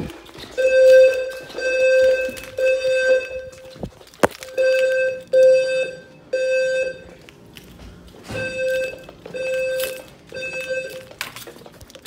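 Fire alarm speakers of a Notifier NFS2-640 voice evacuation system sounding the temporal-3 (code-3) evacuation tone: three short tone pulses, a pause, and the group of three repeated, three groups in all. A single sharp knock falls in the first pause.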